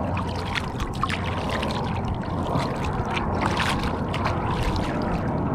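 Small waves lapping and splashing against a kayak hull: a steady wash of water broken by many short, quick splashes.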